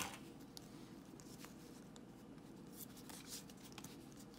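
Faint handling of Pokémon trading cards, with a few soft scattered ticks and rustles as the cards are slid and sorted by hand, over a low steady hum.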